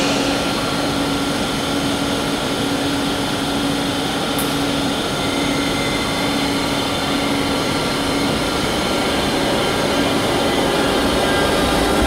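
Bombardier TRAXX class 186 electric locomotive hauling the Fyra train slowly into the station, giving a steady electrical hum with a held low tone and fainter high whines.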